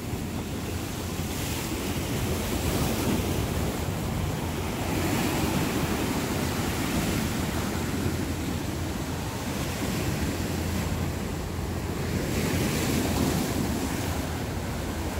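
Rough sea surf breaking on a rocky shore, with wind rumbling on the microphone; the wash swells and eases several times as waves break.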